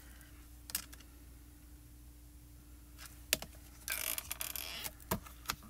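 Light clicks and taps from a hinged stamp positioning tool as its clear lid is closed down onto a photopolymer stamp, with a brief scratchy rustle of hands on paper near the middle. The clicks are scattered and faint.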